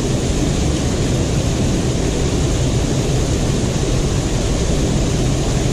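Fast-flowing river water rushing steadily over rocks, a constant loud noise with no distinct events.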